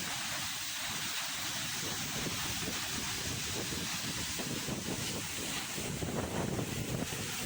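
Steady rushing noise of a waterfall, with wind buffeting the microphone more from about halfway through.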